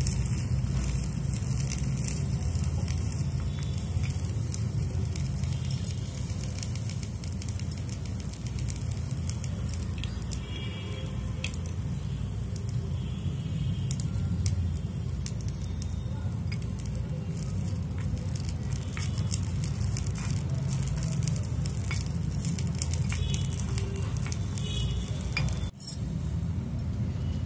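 Food sizzling in a hot iron kadai over a wood-twig fire, with scattered crackles over a steady low rumble. The sound cuts out for an instant near the end.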